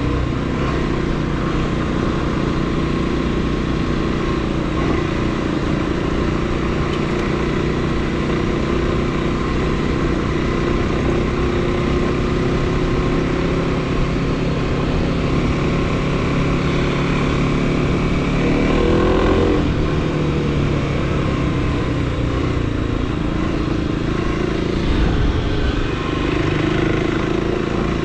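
Motorcycle engine running steadily while riding. Its revs climb and drop back once, about two-thirds of the way through.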